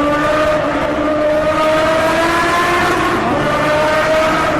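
Racing motorcycle engine running under acceleration, its pitch climbing slowly. About three seconds in the pitch dips briefly, as on a gear change, then climbs again.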